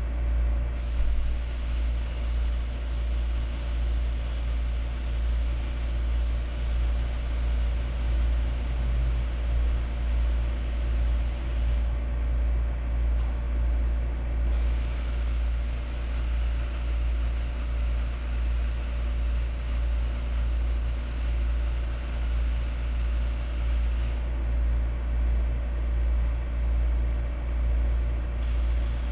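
Air hissing out of a lawn tractor's rear tire valve as the tire is let down toward 10 psi: two long hisses of about ten seconds each with a short pause between, and a brief one near the end. A steady low hum runs underneath.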